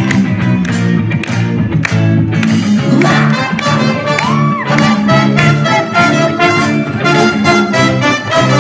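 Live rock band playing an instrumental passage: trumpet and trombone carry the tune over electric guitars, bass guitar and a steady drum beat.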